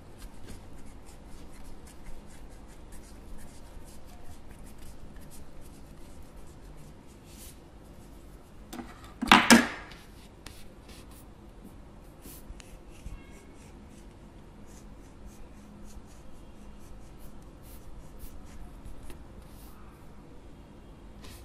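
Soft handling sounds of modelling clay being squeezed and then cut with a serrated knife: light rubbing and small clicks, with one brief loud noise about nine seconds in.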